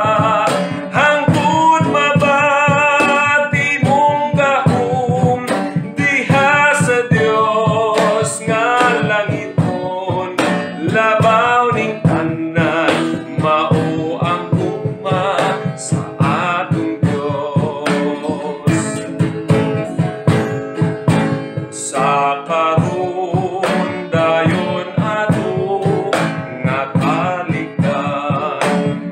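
A man sings a Bisaya (Cebuano) hymn while strumming chords on an acoustic guitar in a steady rhythm.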